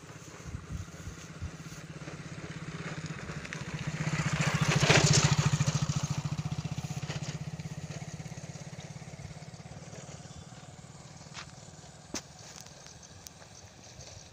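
A motor vehicle passing by: its engine drone rises to a peak about five seconds in, then fades away over the next several seconds. A few light clicks near the end.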